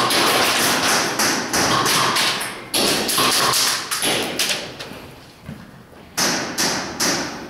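Airsoft guns firing in fast bursts of sharp snapping taps, many per second, easing off around the middle and picking up again about six seconds in.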